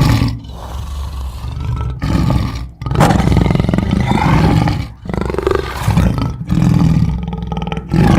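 Lion roaring in several long bouts with short breaks between them.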